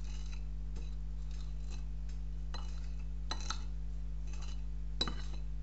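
A few faint, scattered taps and clinks of a hand working on a china plate of chopped coriander, over a steady low electrical hum.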